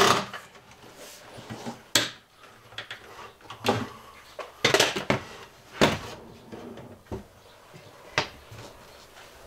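Wooden kitchen drawer being handled while its drawer front is fitted: about five separate knocks and clunks of the drawer and wood being moved and set in place.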